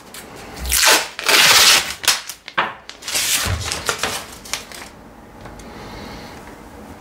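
Masking tape pulled off its roll in a long rip about a second in, followed by shorter rips and crinkling as the strip is pulled free and handled.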